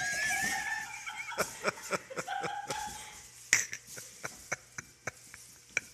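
A high, wavering squeal in the first second or so, then a run of short knocks and thumps, a few a second with a sharp one about three and a half seconds in, from a child in a cardboard-box robot costume scrambling barefoot across a tile floor after a rubber ball.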